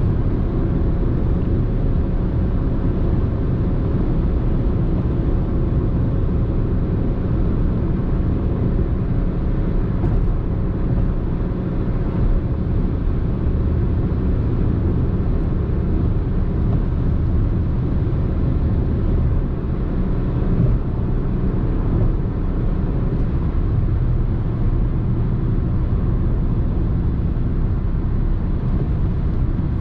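Renault Clio IV with a turbocharged 1.2 TCe petrol engine cruising at highway speed: a steady, low rush of road and wind noise with the engine running beneath, and one brief bump about two-thirds of the way through.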